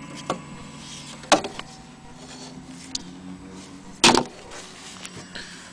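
Irregular knocks and clicks from handling the wooden case of a Seth Thomas weight-driven wall clock, two of them louder than the rest, about a second in and about four seconds in.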